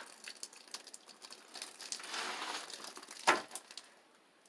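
Ceiling insulation being pulled down: crinkling and rustling with many small crackles, a longer rustle about two seconds in, and a single thump just past three seconds, the loudest sound.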